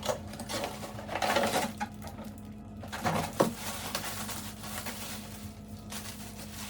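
Light clatter and rustling of objects being handled, a few short knocks, over a steady low hum.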